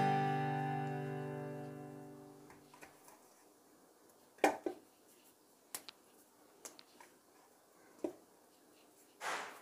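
A strummed guitar chord rings out and fades away over the first few seconds. Then, near quiet, there are a few faint taps and a short rustle near the end as hands roll soft dough balls in a stainless steel bowl.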